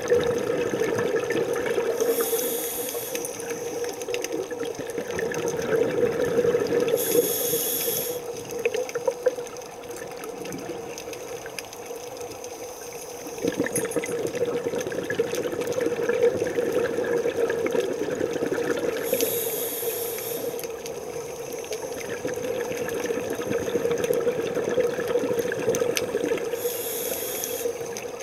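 Scuba diving underwater, with a diver's regulator breathing: four short hissing inhales spaced several seconds apart, and bubbly rushing exhalations between them, over a steady low hum.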